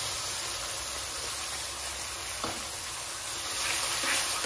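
Blended tomato and spice paste sizzling and spitting as it hits hot butter in a kadhai, stirred with a metal spatula. The sizzle grows louder near the end.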